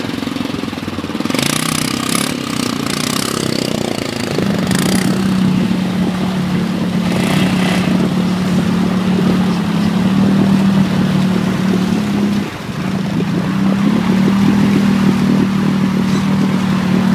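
ATV engine running under throttle as a quad bogged down in deep mud spins its wheels, with mud and water splashing in short bursts in the first half. The engine note settles into a steady drone about four seconds in, dips briefly about two-thirds through and picks up again.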